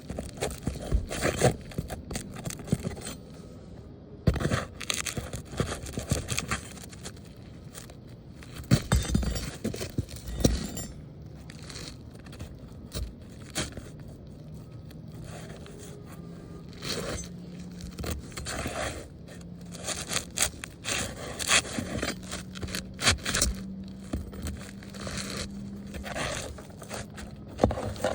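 Irregular scraping, crunching and knocking of asphalt roof shingles being worked by hand, with several louder knocks among the scrapes.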